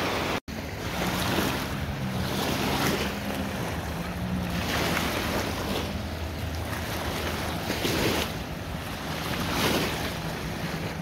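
Small waves washing against the reservoir shore in swells every second or two, with wind on the microphone and a low steady hum underneath. The sound drops out briefly about half a second in.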